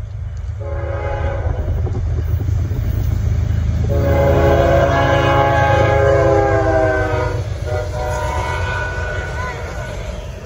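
Norfolk Southern GE ES44DC diesel locomotive sounding its air horn three times: a short blast about half a second in, a long blast from about four seconds, and another near the end. Under the horn is the steady heavy rumble of its V12 diesel engine and the train passing close by.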